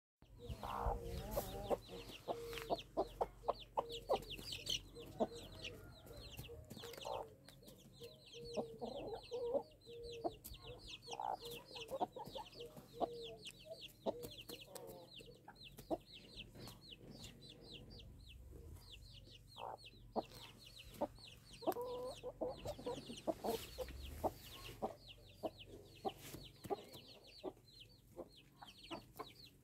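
Chicks peeping without pause, short high falling chirps several a second, while adult chickens cluck low now and then, most in the first half and again about two-thirds of the way through. Short sharp clicks are scattered throughout.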